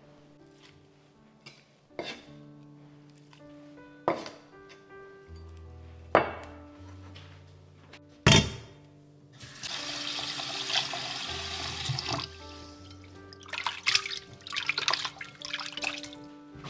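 Kitchen tap running for about three seconds near the middle, followed by irregular splashing as something is rinsed under it, over background music.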